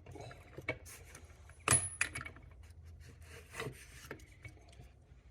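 A wrench tightening the gearbox sprocket nut on a Triumph 500 gearbox, metal on metal: scattered clicks and short scraping noises, with one sharper metallic clack about two seconds in.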